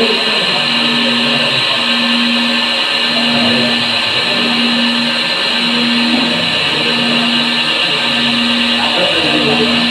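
ZERO 990 MC CNC machine running a program: a steady, loud whirring, with a low hum that pulses on and off about once a second.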